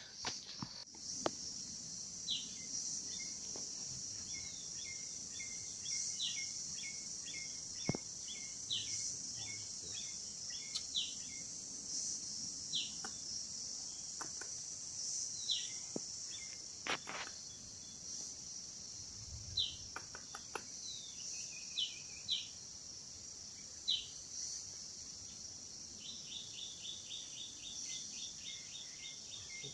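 Forest ambience: a steady high-pitched insect drone, with a bird calling again and again in short, downward-sliding whistled notes that turn into a quick run of about six notes a second near the end. A few sharp clicks, like twigs snapping, come through now and then.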